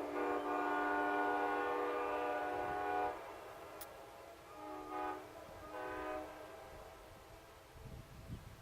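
Multi-chime locomotive air horn sounding a steady chord of several tones, which cuts off about three seconds in. Two short, quieter toots follow a couple of seconds later.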